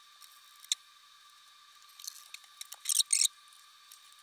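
Fast-forwarded handling noise from reassembling a rack router's chassis and internals: high-pitched clicks and scratchy rustles, loudest in a double burst of scraping about three seconds in, over a thin steady whine.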